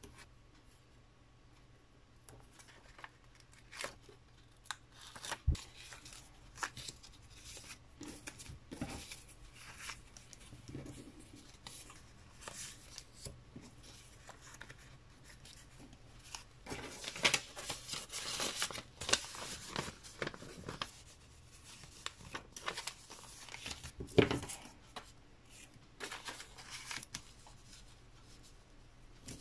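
Paper and stickers being handled and folded on a cutting mat: scattered rustles, light taps and clicks, with a denser stretch of crinkling paper past the middle and one sharper knock near the end.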